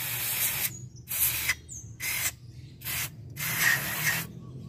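Aerosol can of contact cleaner spraying onto a mass airflow sensor in five short bursts, the last about a second long.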